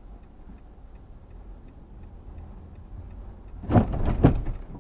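Low steady hum inside a car cabin with a faint, regular ticking. Near the end come two loud, sudden sounds about half a second apart.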